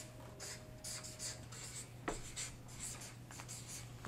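Felt-tip marker writing on a paper chart pad: a quick run of short, scratchy strokes as a line of words is written.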